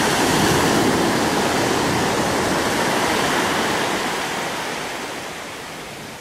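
Sea surf on a sandy beach: a wave breaks with a sudden rush of noise, and the wash then fades gradually over several seconds.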